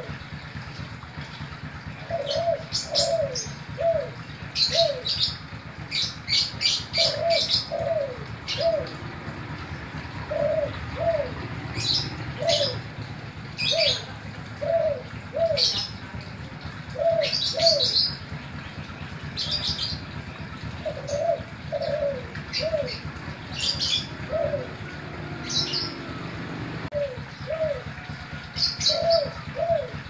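Caged spotted dove (Kelantan derkuku) cooing in short, slightly falling notes, phrase after phrase in small groups. Higher chirps from other small birds come in bursts between the phrases.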